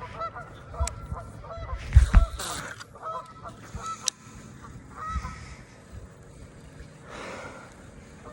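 Geese honking in a run of short, repeated calls, busiest in the first few seconds. Two loud, low thumps come about two seconds in.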